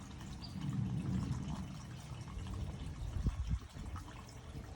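Pond water pouring and trickling into a floating surface skimmer as a submersible pump draws the water hard. It runs as a steady rushing noise that swells about a second in, with a few dull low knocks near the end.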